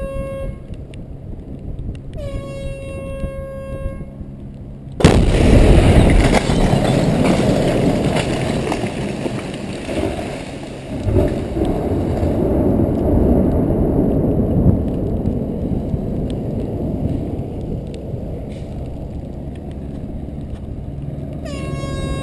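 Air horn sounds two warning blasts. About five seconds in comes a sudden, very loud explosive bang as charges on the overhead power-line conductors detonate, typical of implosive splicing of transmission lines. A long rumble follows and slowly fades, and the horn starts again near the end.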